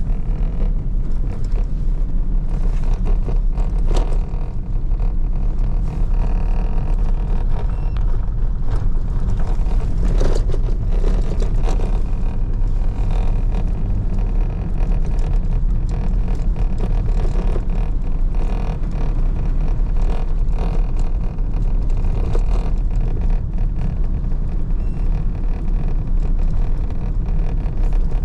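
A car or truck driving: a steady, loud low rumble of engine and road noise, with scattered knocks and rattles.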